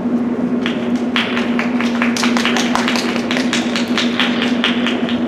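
Scattered hand clapping from spectators in a sports hall: separate sharp claps a few per second, starting about a second in, over a steady low electrical hum.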